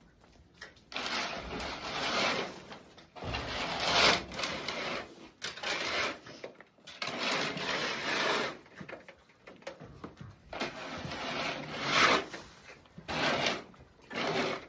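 Cleaning tool scraping in repeated rough strokes, each half a second to two seconds long with short pauses between them.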